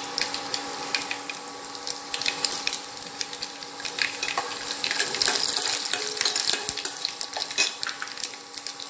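Mustard seeds and dried red chillies frying in hot oil in a stainless steel pot for a tempering, a steady sizzle with a dense crackle of small pops, and a steel ladle stirring in the pot.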